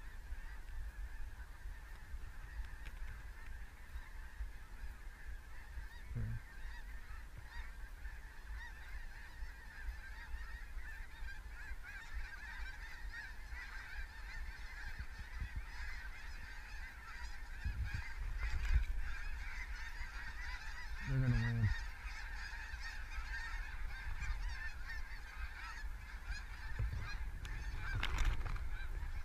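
A large flock of snow geese calling overhead: a dense, continuous chorus of honking that grows fuller about halfway through.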